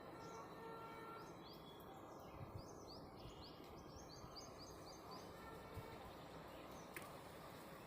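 Faint bird chirping: series of short, quick rising chirps over a low, steady background noise. The chirps stop about five seconds in.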